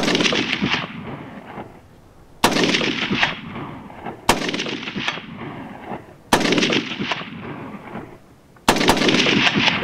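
Five rifle shots fired from a shooting bench, about two seconds apart. Each shot has a long fading echo.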